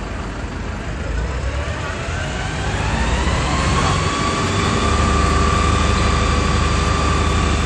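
A siren winding up: its pitch climbs smoothly for about three seconds, then holds on a steady high tone. Underneath is a low engine rumble.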